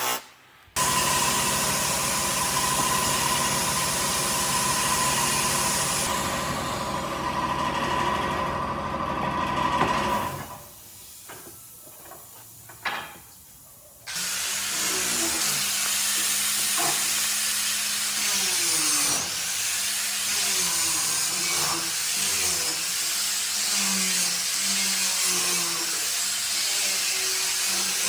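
Woodworking power tools running on wood. There is a quieter stretch with a few knocks between about ten and fourteen seconds in.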